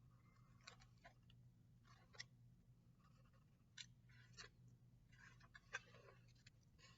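Near silence: room tone with a steady low hum and a few faint, scattered rustles and ticks.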